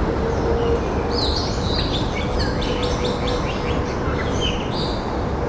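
Small birds chirping and twittering in a quick run of short high calls, starting about a second in, over a steady background rush and a faint steady hum.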